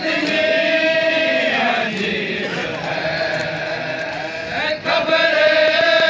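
Voices chanting a Muharram mourning chant (noha), with long held notes at one pitch: one near the start and another from about five seconds in.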